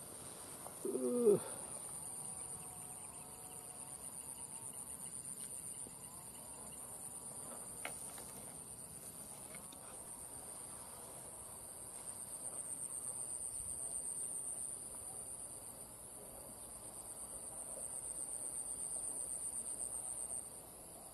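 Insects chirring in a high, steady, finely pulsing drone that swells louder twice. About a second in, a brief loud call falling in pitch stands out, and a single click comes near the middle.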